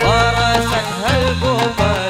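Gambus band playing: a sliding, ornamented melody over a stepping bass line and steady hand-drum strikes.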